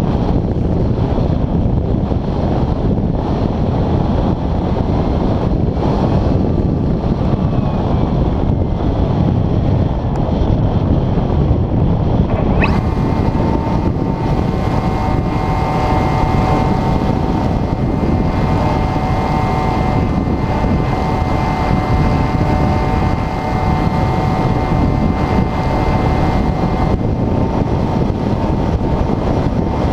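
Wind rushing over the airframe of an Airfield Extreme Surfer 2400mm RC glider in flight, loud on the onboard camera's microphone. About 13 seconds in, the electric motor comes on with a steady whine that carries on under the wind.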